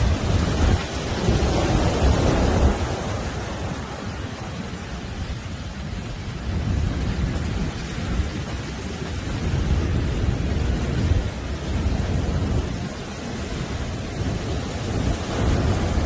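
Heavy surf: large waves breaking and churning into white foam on a sandy beach, a continuous deep rumble and hiss that swells loudest in the first few seconds and again near the end.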